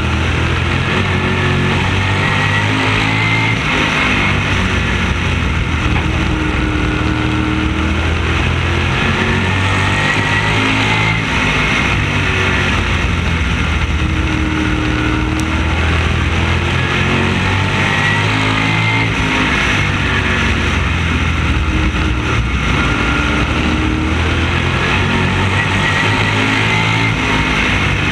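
Open-wheel oval race car's engine at racing speed, heard from on board the car. Its pitch climbs and falls about every seven seconds, lap after lap, as it accelerates down each straight and lifts into the turns.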